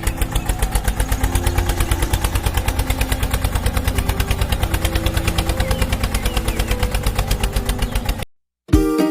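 Small single-cylinder engine running at an even idle, a rapid regular putter of about ten beats a second, with faint background music; it cuts off suddenly near the end.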